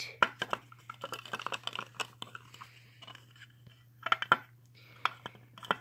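Small plastic toy pieces handled by hand: a run of light clicks and clatters from a plastic toy cabinet and its tiny contents, with a louder cluster about four seconds in.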